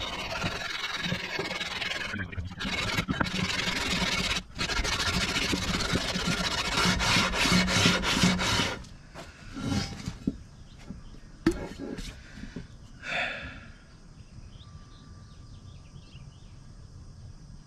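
Cast-iron exhaust manifold from a 1961 Cadillac 390 V8 scrubbed back and forth on 80-grit sandpaper stuck to a granite slab, a steady rasping scrape, flattening its warped head mating surface so the gasket will seal. The sanding stops about nine seconds in, followed by a few knocks.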